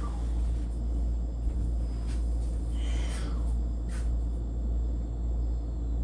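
A steady low rumble, with a few faint brief swishes over it.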